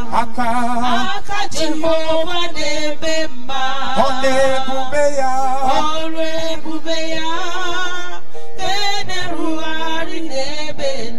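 Church worship singing: voices singing over a steady held note from the accompaniment.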